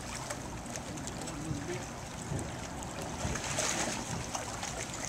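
Steady outdoor water noise of the bay lapping at the pier's rocky edge, with a few small knocks and faint, indistinct sounds over it.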